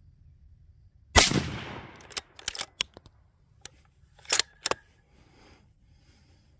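A single rifle shot about a second in, ringing out and dying away over about a second, followed by several short sharp clicks and knocks.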